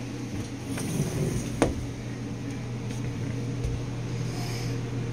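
Steady low mechanical hum of a running room appliance, with some rustling and one sharp click about a second and a half in.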